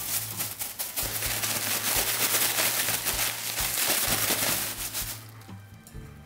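Thin plastic bag crinkling and rustling as it is shaken hard with chicken pieces and starch powder inside, coating the chicken. The rustle dies away about a second before the end.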